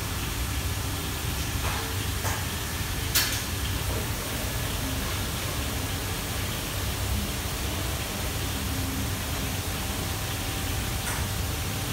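Steady noise of a commercial kitchen's wok burners and extraction hood running. A single sharp knock comes about three seconds in, with a few fainter clicks from the cook's work.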